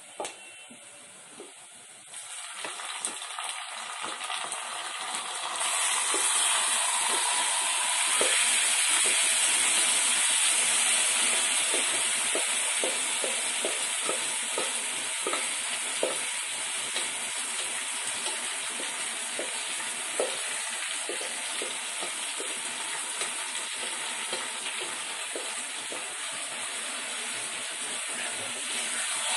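Marinated chicken sizzling as it hits hot oil and fried onions in a steel pot. The sizzle starts about two seconds in and gets much louder a few seconds later, with a spoon scraping and tapping against the steel as the meat is scraped in and stirred.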